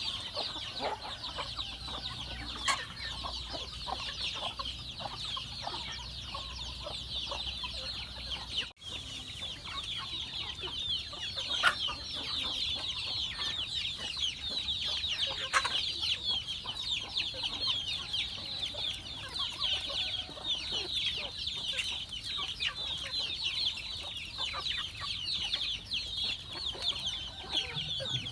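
A flock of chickens calling without a break, a dense chatter of many short high calls, with a few sharp knocks here and there and a momentary break about nine seconds in.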